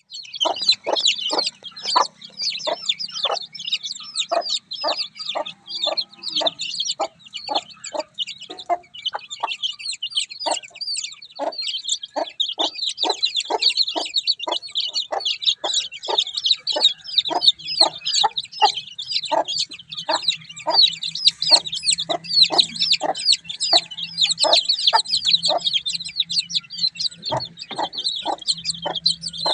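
A brood of chicks peeping continuously in high, overlapping chirps, while a mother hen clucks in short, low, evenly repeated clucks, about two a second.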